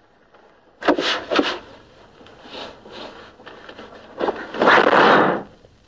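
Objects being scraped and knocked on a wooden table: two sharp scraping knocks about a second in, softer scuffs, then a louder rasping noise lasting under a second near the end.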